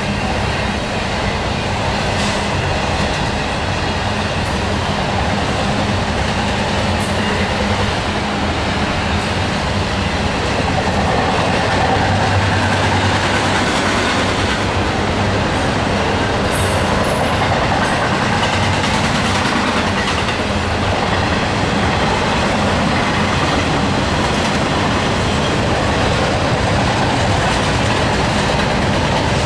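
Double-stack intermodal container train rolling past: the steady noise of its cars' wheels on the rails, growing a little louder about ten seconds in.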